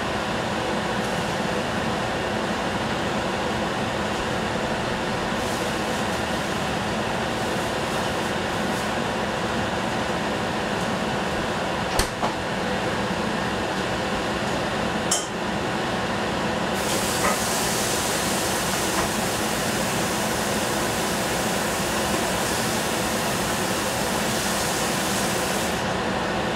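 Covered stainless-steel pan cooking over a gas burner on a strong flame: a steady rushing noise with two sharp clicks near the middle. A higher hiss joins past the middle and stops shortly before the end.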